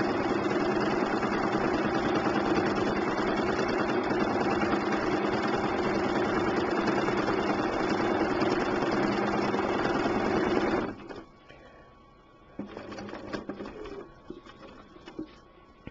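Sewing machine running steadily at constant speed, stitching during free-motion quilting, then stopping abruptly about eleven seconds in. After that only faint scattered noises.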